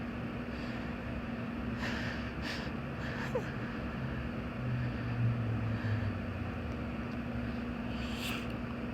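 Short congested sniffs and breaths between sneezes, four brief ones, the last near the end the strongest, over a steady low hum.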